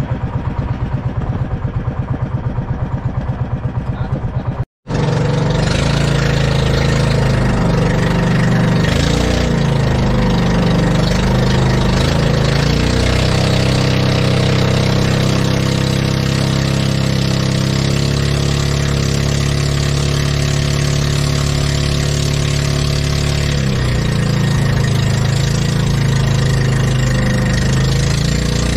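Motorised outrigger boat's engine running steadily under way, with rushing water and wind around it. The sound cuts out for an instant about five seconds in, then runs on steadily.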